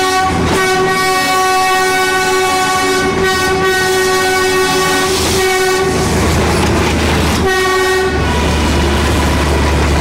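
Narrow-gauge Darjeeling Himalayan Railway diesel locomotive's horn: one long steady blast of about six seconds, then a short second blast a little later. After it the low rumble of the locomotive's engine carries on as the train pulls away.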